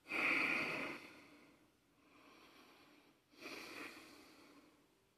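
Two breaths blown out hard through the nose close to the microphone: a louder one lasting about a second at the start, then a shorter, softer one about three and a half seconds in.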